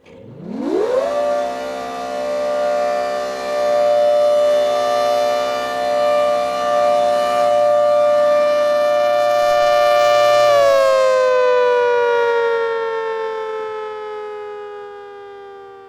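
ACA Hurricane 130 MKII outdoor warning siren sounding a chord of several tones. It winds up to full pitch within about a second and holds a steady wail. About ten seconds in it begins winding down, the pitch sliding slowly lower as it fades.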